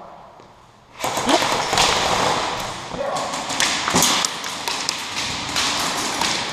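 Airsoft guns opening fire about a second in: a sudden, loud, dense clatter of rapid shots and BBs tapping and knocking on hard surfaces, with a shout or two mixed in.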